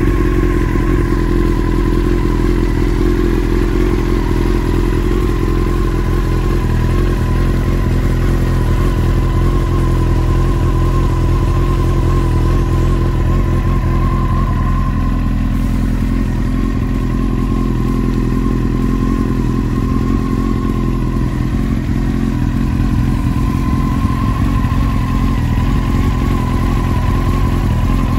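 Honda CBR929RR Fireblade's inline-four engine idling steadily through an aftermarket slip-on exhaust.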